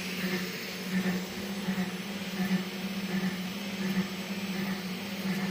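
A steady low machine hum with a faint even hiss beneath it.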